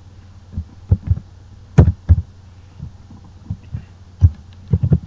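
Irregular dull taps of typing on a computer keyboard, about a dozen uneven strokes heavy in the low end, over a faint steady low hum.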